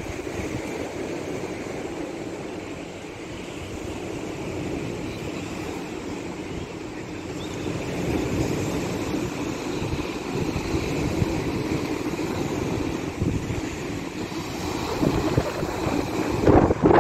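Wind buffeting the microphone outdoors: a steady rush with gusty low rumble, growing stronger near the end.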